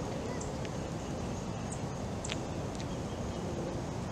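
Steady outdoor background noise, with a few short, high chirps from birds.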